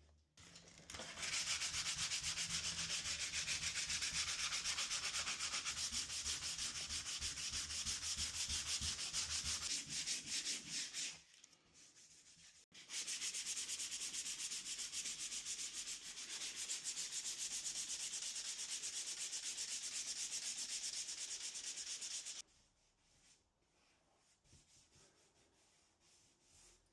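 Rough sandpaper rubbed in quick, even back-and-forth strokes over hardened filler. It runs in two spells of about ten seconds each, with a short pause between them, and stops near the end.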